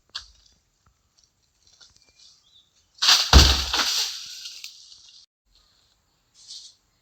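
A cut section of coconut palm crashing to the ground about three seconds in: a heavy thud followed by a rustling crash that dies away over about two seconds.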